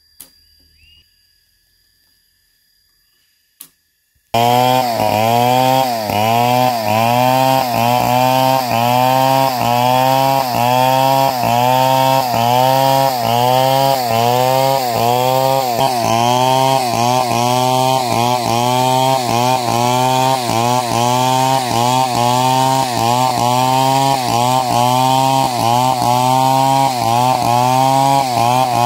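Chainsaw cutting through a large log under load, its engine pitch dipping and recovering about one and a half times a second. Before it, about four seconds of quiet broken by two sharp clicks, then the saw comes in suddenly at full loudness.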